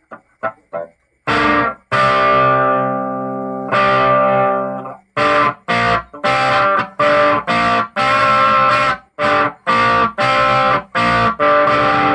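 Electric guitar played through an amplifier driven into its own overdrive distortion, with no pedal. A few light plucks, then two long ringing chords, then a run of short, choked chords at about two a second.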